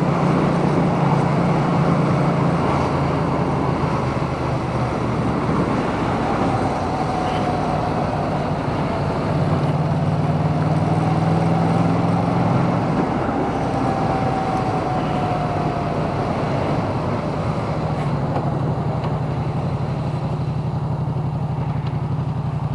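Yamaha MT-07 parallel-twin engine running under way, heard through a microphone inside a full-face helmet with steady wind rush. The engine note shifts up and down a little with the throttle.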